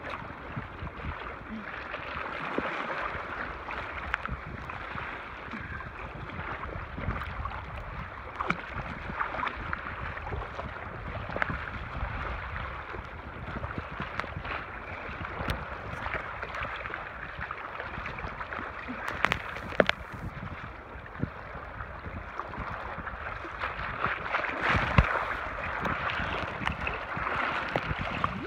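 Water lapping and splashing among shoreline rocks: a steady wash with small irregular splashes.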